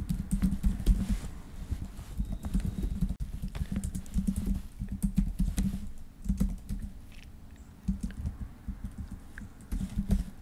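Typing on a computer keyboard: irregular runs of keystroke clicks, thinning out after about seven seconds.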